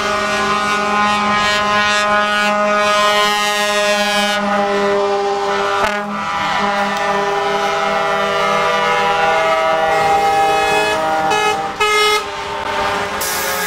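Air horns on passing trucks sounding long and almost without pause, several horns overlapping in chords, over the trucks' engine and road noise. A short burst of hiss near the end.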